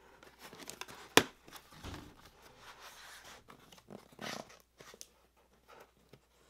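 Folding knife blade cutting through packing tape and cardboard along a shipping box's corner, with a sharp snap a little over a second in. Cardboard flaps then scrape and rustle as the box is pulled open and a boxed toy is shifted inside.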